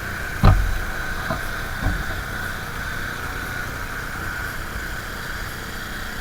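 Pressure washer running steadily, with a thump about half a second in and a couple of lighter knocks in the next second and a half.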